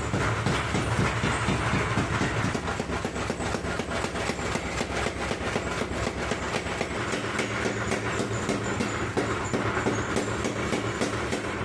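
Homemade power hammer running, striking in a fast, steady rhythm of several blows a second over the hum of its drive.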